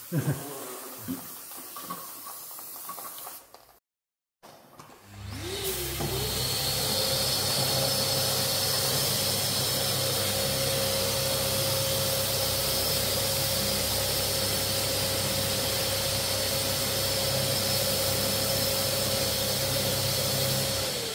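A motor-driven machine spins up about five seconds in, runs steadily with a loud hiss and a steady whine, and winds down near the end. A few knocks come before it.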